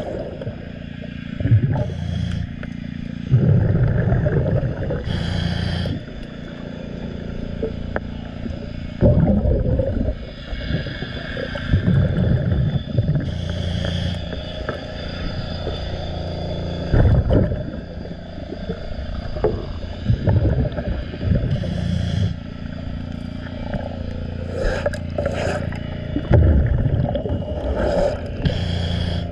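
Heard underwater: a scuba diver's regulator breathing, with surges of exhaled bubbles and hiss coming back every few seconds, over scrubbing and scraping against a boat hull being cleaned.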